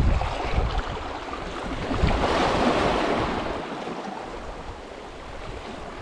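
Sea waves washing in, one wash swelling up and fading away between about two and four seconds in, with wind rumbling on the microphone near the start.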